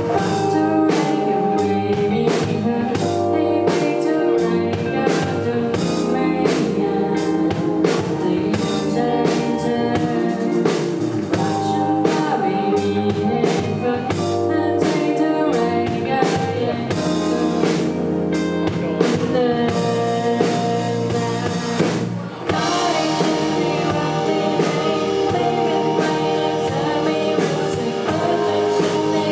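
Electronic pop played live, with synths over a drum-kit beat and a sung vocal line. About 22 seconds in, the beat drops out briefly and sustained synth chords carry on.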